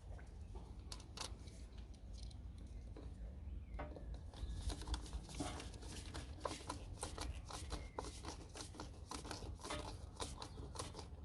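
Hands fitting plastic cold air intake parts: a run of small clicks, scrapes and rustles, sparse at first and busier from about four seconds in.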